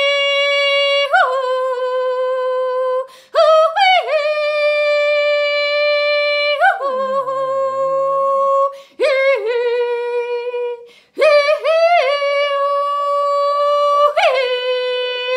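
A woman singing long, wordless held notes at about the same pitch, each opening with a quick jump in pitch, with short pauses for breath between them: channeled vocal toning.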